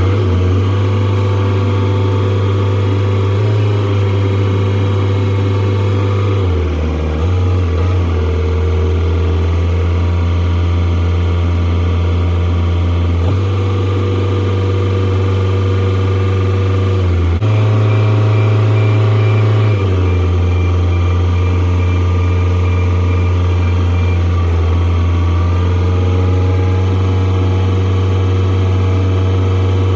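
Engine of a working machine running steadily, its speed shifting several times.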